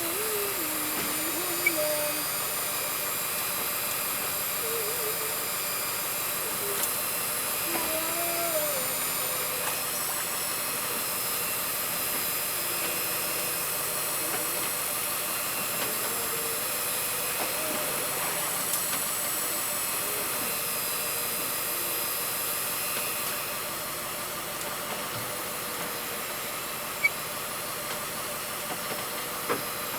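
Boat engine running steadily with a high-pitched whine and hiss, a little quieter from about 23 seconds in.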